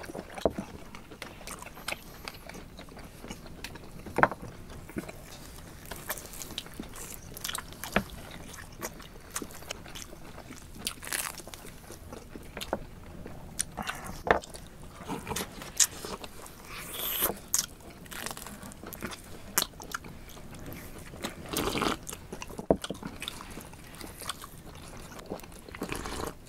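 Close-miked eating sounds: several people chewing and gnawing barbecued meat off the bone, with scattered wet clicks, smacks and crunches at irregular intervals.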